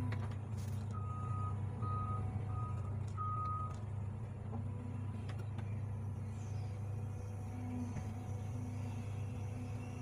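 Excavator's diesel engine running steadily while the bucket trims an earth slope. About a second in, an alarm gives four high beeps at one pitch.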